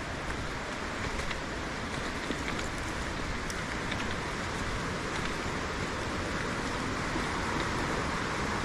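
Steady rushing of flowing water from a forest stream, with a few faint scattered ticks.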